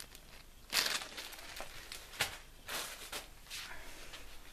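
Plastic packaging rustling in a few short bursts as a bag of scatter confetti and fireworks packets are handled in a plastic bucket.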